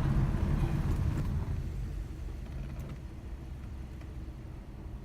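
A car going by in the street, a low rumble that fades away over the first two seconds, leaving faint traffic noise.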